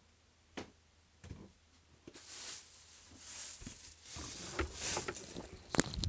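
Rustling and handling noises as things are moved about, with scattered knocks and a couple of single clicks, ending in a sharp click.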